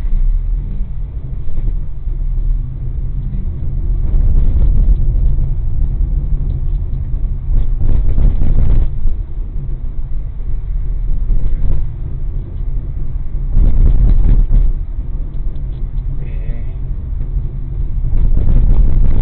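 Low, steady rumble of a car driving on a city street, heard from inside the cabin, swelling louder several times as road and engine noise rise.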